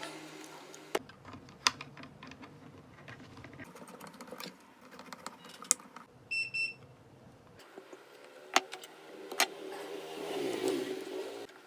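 Scattered small clicks and taps of tools and plastic parts being handled while headphone speakers are soldered and screwed back into place, with a short electronic beep about six and a half seconds in.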